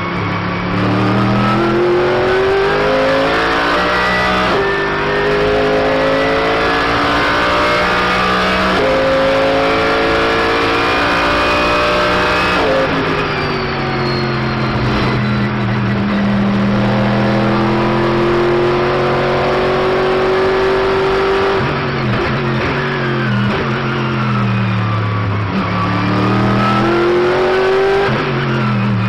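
Mercedes-AMG GT3 race car's 6.2-litre V8 heard onboard at racing speed. The revs climb through several quick upshifts, fall away in a run of downshifts under braking about halfway through and again later, then climb once more near the end.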